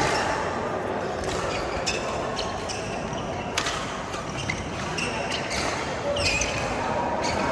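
Badminton play: several sharp racket hits on the shuttlecock at irregular intervals, with short sneaker squeaks on the court floor and voices chattering in the background.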